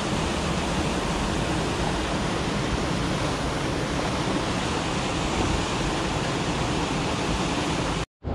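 Stream water rushing steadily over a low concrete weir into the pool below. The sound drops out for an instant near the end.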